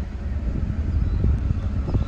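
Low, steady rumble of an approaching freight train's diesel locomotives, still distant, mixed with wind noise on the microphone.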